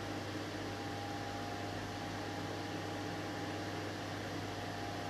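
Steady low hum and hiss with a faint higher whine, unchanging, with no distinct events: background room tone.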